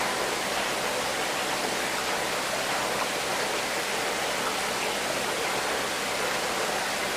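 Steady rushing of running water, an even hiss that does not change.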